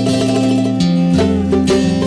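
Instrumental break in a Bengali patriotic song, with held notes and a bass line that shifts pitch about a second in.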